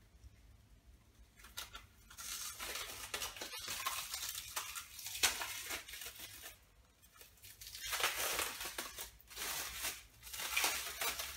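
Plastic wrapping crinkling and tearing as it is pulled off a painting, in two long spells of rustling with a short lull a little past halfway.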